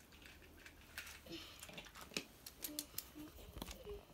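Faint, scattered clicks and taps of plastic toy trains, carriages and track pieces being handled.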